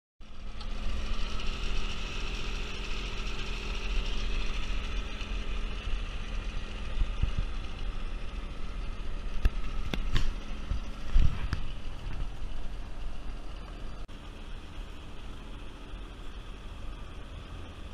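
Wind and water noise from a sailing yacht under way, heard on a deck-mounted camera, with a steady low hum under it. A few knocks come about ten seconds in, and the noise drops down a step a few seconds before the end.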